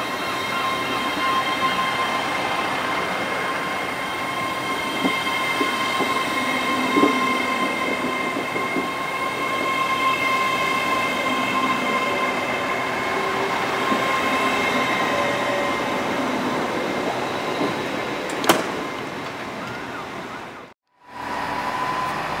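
GWR Intercity Express Train running along the platform: a steady rumble of wheels and running gear with a sustained high tone over it, and a sharp click near the end. The sound cuts out abruptly about a second before the end, then comes back as another train.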